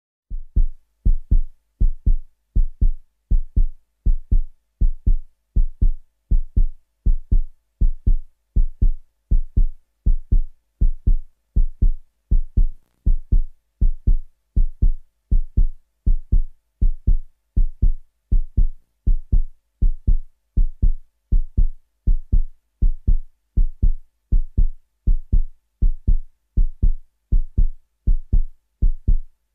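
Heartbeat sound effect: a deep double thump repeating steadily, about once a second.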